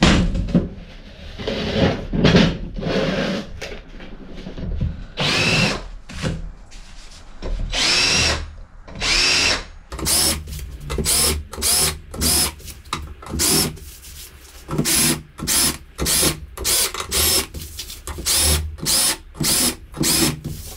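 A few heavy clunks as the steel buffer-beam plate is set down on the steel bench, then a cordless drill drilling into the plate: first a few longer runs whose pitch climbs as the motor speeds up, then many short trigger bursts, about one to two a second.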